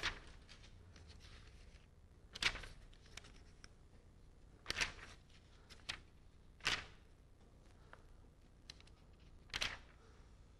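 About six short, faint scratchy rustles, spaced a second or two apart, over a steady low hum.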